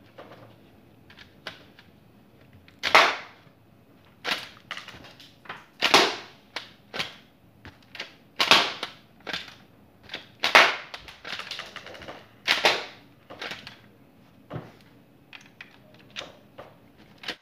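A Lego semi-automatic pistol, powered by a rubber band and spring, firing. There are about five sharp plastic snaps, roughly two seconds apart, with lighter clicks and rattles of the mechanism between them.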